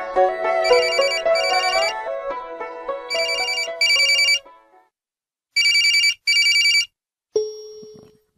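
Cell phone ringing in a double-ring pattern, three pairs of rings about two and a half seconds apart. Background music plays under the first rings and fades out about halfway through; near the end a single tone sounds and dies away.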